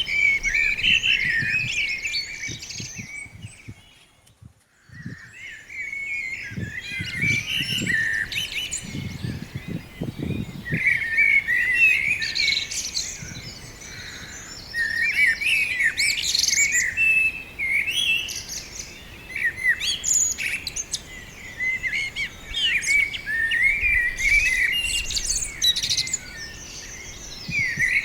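A busy chorus of small birds chirping and singing together in a tree, many overlapping quick chirps and trills. It drops to a brief lull about four seconds in, then resumes.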